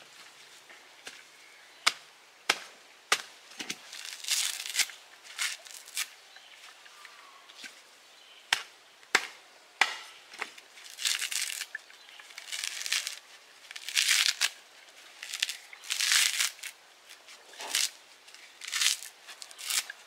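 Coconut husk being hacked with a machete and torn apart by hand: sharp chopping strikes, in two quick runs of three, between stretches of dry, fibrous ripping.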